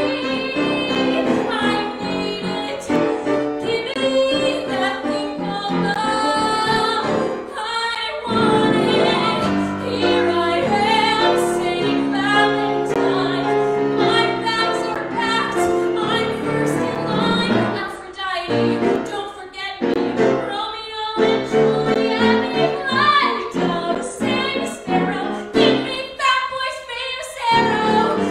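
A woman sings a musical-theatre song solo with grand piano accompaniment. Her voice carries long, held notes over the piano chords.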